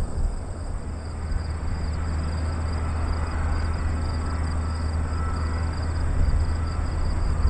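Distant hush-kitted Pratt & Whitney JT8D turbofans of a Boeing 727-21 running at low power while it taxis: a steady low rumble, with a faint high turbine whine joining after a couple of seconds.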